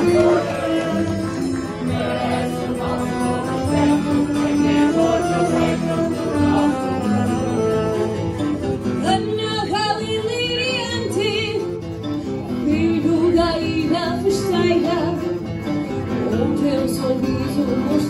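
Live singing accompanied by a string band of acoustic guitars, with held, wavering sung notes about halfway through.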